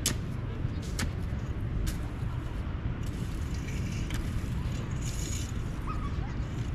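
Open-air beach ambience: a steady low rumble with sharp ticks about once a second and a brief faint chirp near the end.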